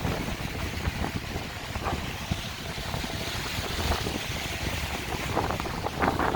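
Strong wind buffeting the microphone in a snowstorm: a steady, rumbling rush of noise, with a few short crackles near the end.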